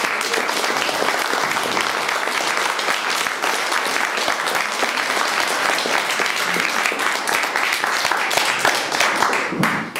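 Audience applauding steadily, a dense patter of many hands clapping, which dies away just before the end.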